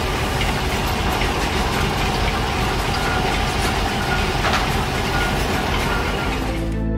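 Heavy engine of a boatyard crane running steadily, a low hum under a wide noise. Background music comes in near the end.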